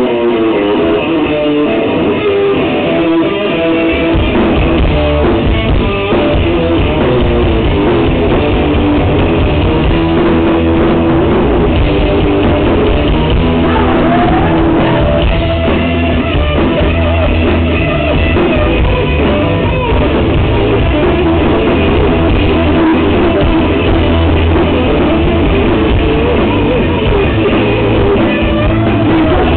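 Rock band playing live: electric guitar, bass and drum kit with a singer. The low end of bass and drums fills in fully about three and a half seconds in.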